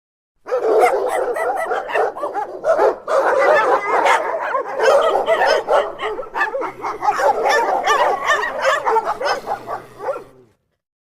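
Dog barking and yipping rapidly and loudly, almost without a break, then cutting off suddenly near the end.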